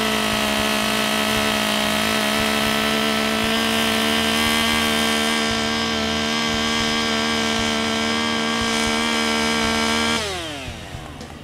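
Husqvarna professional chainsaw's two-stroke engine held at wide-open throttle while its AutoTune adjusts the fuel-air mixture, searching for its best running RPM. The note is high and steady. About ten seconds in, the throttle is released and the pitch falls quickly as the engine drops toward idle.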